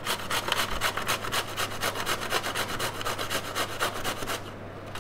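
Bottle gourd (lauki) being grated on a stainless-steel box grater: rapid back-and-forth scraping strokes, about five a second, stopping near the end.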